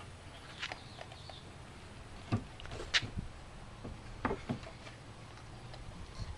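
Irregular sharp knocks and thuds of wooden fence boards and rails being worked on, about five in a few seconds, the loudest about three seconds in.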